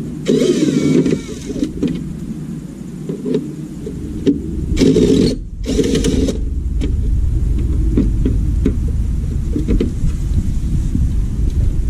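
Cordless drill/driver running in three short bursts, about a third of a second in, about five seconds in and about six seconds in, backing out the screws that hold plastic trim on a van, over a steady low rumble.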